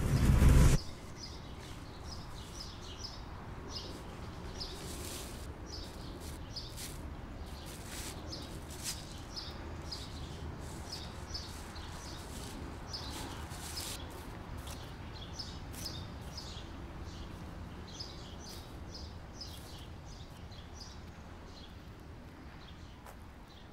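Small birds chirping over a steady outdoor background hiss: short, high chirps repeated again and again. A brief loud burst in the first second.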